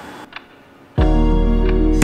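Background music with a heavy bass and held synth notes, starting suddenly about a second in after a quieter stretch.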